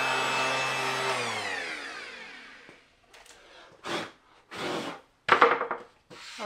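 Random orbital sander running, then switched off about a second in, its whine sliding down in pitch and dying away over the next two seconds. After that come a few short brushing and rubbing noises as sawdust is swept off the plywood by hand, the loudest about halfway through.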